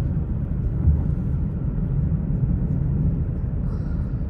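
Steady low road and engine rumble heard inside a moving car's cabin, with one brief low thump about a second in.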